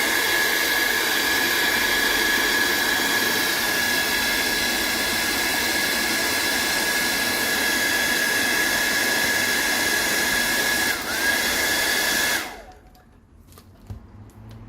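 Hair dryer running steadily with a high fan whine, blowing heat on a stuck phone part to loosen it. It dips briefly near eleven seconds, picks back up, and is switched off about twelve seconds in.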